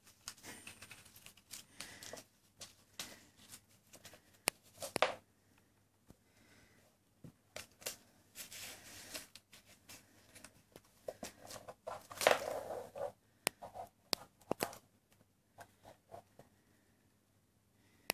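Kitten playing with a small toy on a hard floor: irregular scratches, taps and rustles of claws, paws and fur against the floor and toy. There is a longer scraping rustle about twelve seconds in.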